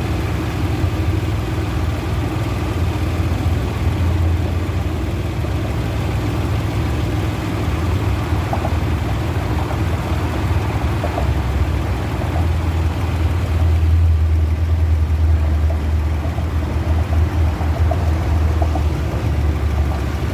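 2007 Toyota 4Runner engine idling with a steady low hum, growing somewhat louder about twelve seconds in, with faint light ticks over it. It is shown as the symptom of a bad water pump.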